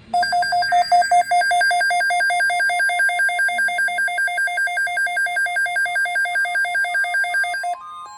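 Emergency Alert System alert tone announcing a flash flood watch: an electronic tone warbling rapidly between two pitches, switching to a different, lower-pitched pattern near the end.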